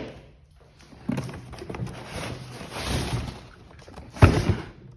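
Packaging being handled during an unboxing: rustling and shuffling for a couple of seconds, then a sharp thunk about four seconds in as something is set down or knocks against the box.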